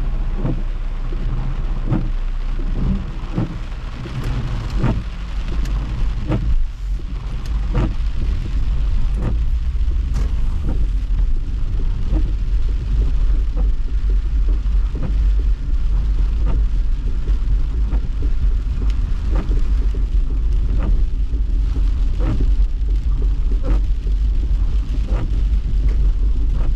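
Car driving in heavy rain, heard from inside the cabin: a steady low road and engine rumble, with rain striking the windshield in sharp, irregular taps several times a second.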